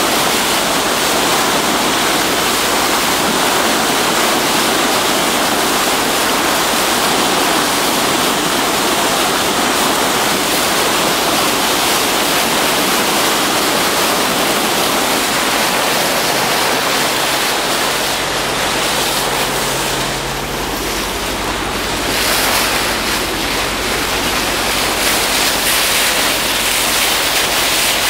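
A ship's bow wave rushing and splashing along the hull: a loud, steady wash of water. A low steady hum joins about two thirds of the way through.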